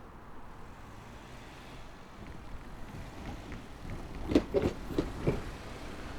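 A car driving over a level crossing, its tyres running with a low rumble and thudding four times over the rails in two quick pairs about a second apart: front wheels, then rear wheels.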